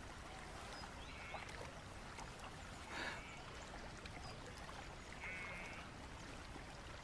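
Faint lake water lapping and trickling, with a brief soft sound about three seconds in and a couple of short high chirps.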